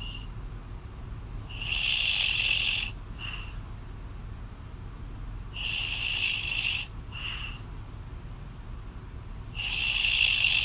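A woman snoring, heard through a phone call: three loud snores about four seconds apart, each lasting about a second and followed by a short, quieter breath.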